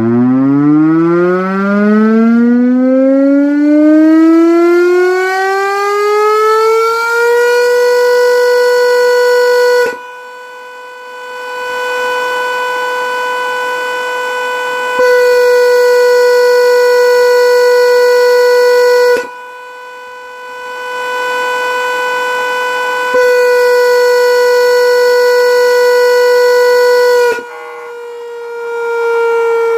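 Secomak CS6 air raid siren winding up, its pitch rising over about seven seconds to a steady high tone. Its damper then pulses it: three times the sound drops sharply to a quieter, duller tone for a few seconds, then swells back to full volume.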